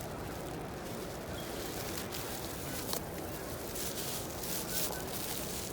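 Steady background noise of a busy exhibition hall, a low wash of crowd and room noise, with a single sharp click about three seconds in.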